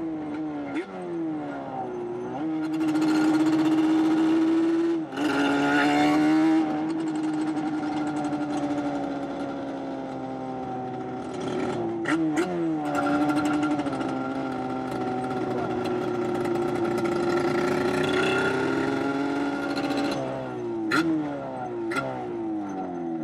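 Yamaha Banshee 421cc two-stroke twin engine revving hard. Its note holds high, drops sharply about five seconds in, climbs again and falls several times in quick succession near the end, with a few sharp pops.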